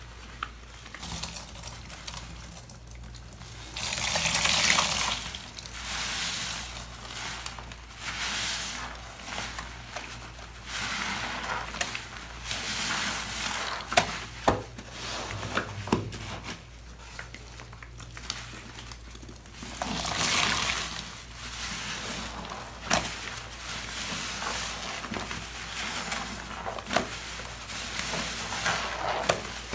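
Rubber-gloved hands squeezing wet waffle heart sponges and foam grout sponges soaked in soapy cleaning products: squelching and sloshing of foamy liquid that comes in waves, with scattered sharp crackles. The two longest, loudest squeezes come about four and twenty seconds in.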